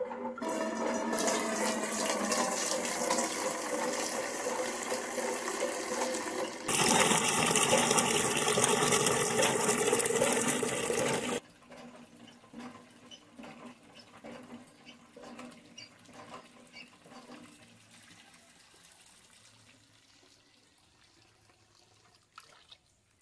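Water from a hand pump pouring into a steel pail, loud and steady. It grows louder about a third of the way in, then cuts off suddenly about halfway through. Quieter splashes and knocks follow and fade away.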